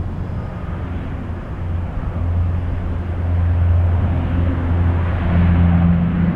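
Bombardier CL-415 water bomber's twin turboprop engines running at high power, a deep steady propeller drone, with a rushing hiss from the hull skimming the lake while it scoops water. It grows louder about three seconds in as the aircraft comes closer.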